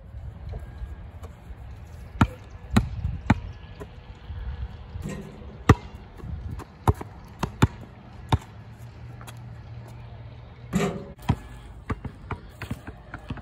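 A basketball bouncing on a paved outdoor court in single, unevenly spaced bounces, with a louder clattering hit about eleven seconds in, over a steady low rumble.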